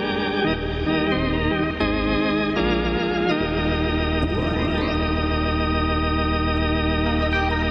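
Background music of held, wavering organ-like keyboard chords. The chords change about once a second at first, then one chord is held over a steady low drone. A rising sweep comes about four seconds in.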